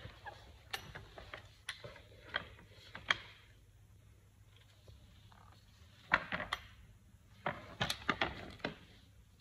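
Scattered light clicks and knocks, some in quick little clusters, coming in two spells: during the first three seconds and again from about six seconds in.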